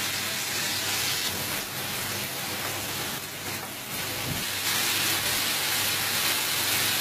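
Marinated boneless chicken pieces sizzling as they fry in hot oil in a flat pan while being stirred with a spatula. It is a steady hiss that gets somewhat louder a little past halfway.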